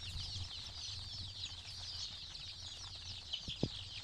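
A flock of Kadaknath chickens calling all at once, a dense unbroken chorus of many short, high peeps. There is a single low thump about three and a half seconds in.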